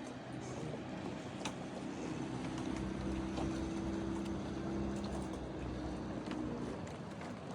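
A motorboat engine running with a steady hum, growing louder through the middle and fading away near the end, over a rushing background noise.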